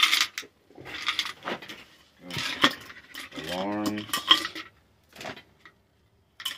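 Small hard plastic objects clattering and clinking as they are handled: a bag of lighters, then a plastic alarm clock. A few separate bursts of knocks, with a short hum from a man's voice a little past the middle.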